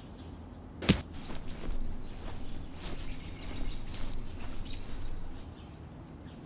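A sharp snap about a second in, then faint, irregular footsteps on a dirt forest path, with leaves rustling.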